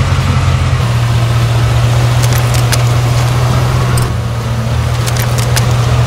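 Truck engine running at a steady low idle as the truck rolls slowly on asphalt, with a few faint sharp clicks.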